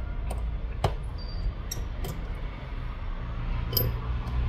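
Precision screwdriver and small screws being taken out of a phone's internal bracket and set down: a few sharp, light clicks over a steady low hum.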